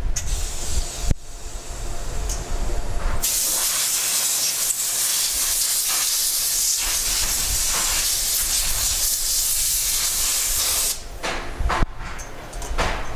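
A steady, loud hiss that starts about three seconds in and cuts off sharply about eight seconds later, with scattered knocks and handling noise before and after.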